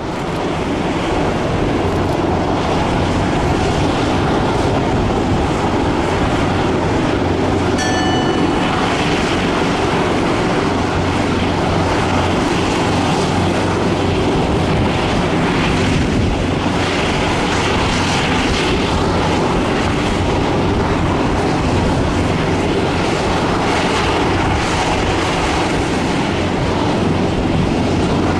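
Boeing 787-10 airliner taxiing, its Rolls-Royce Trent 1000 engines running at taxi thrust as a steady jet rumble and hiss that fades in at the start. A brief high tone sounds about eight seconds in.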